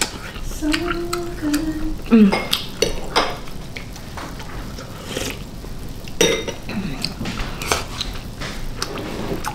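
Close-up eating sounds: a spoon and chopsticks clicking and clinking against a ceramic bowl at irregular moments, with blowing on and chewing of a hot dumpling.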